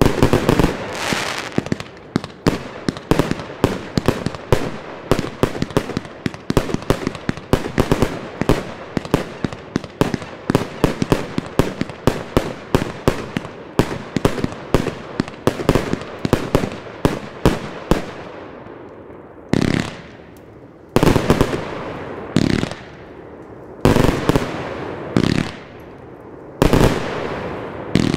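Midnight Wolf 200-shot firework cake firing: a rapid string of shots and air bursts, several a second, which thins after about eighteen seconds into single bursts about a second apart, each with a longer noisy tail.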